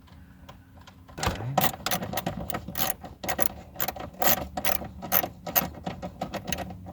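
Irregular plastic clicks and rattles, several a second and starting about a second in, as the HVAC control panel of a 1999 Chevy Malibu is worked loose from the dash.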